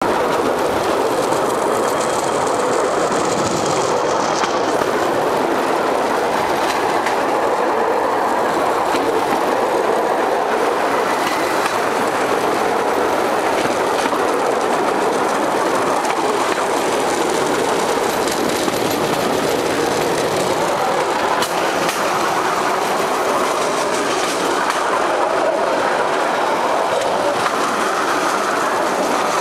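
Cambodian bamboo train (norry) running along the rails: a steady rumble from its small petrol engine and iron wheels, with occasional clacks as the wheels cross the rail joints.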